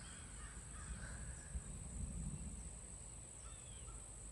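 Faint outdoor ambience: a few distant bird calls over a low, steady rumble that swells briefly about two seconds in.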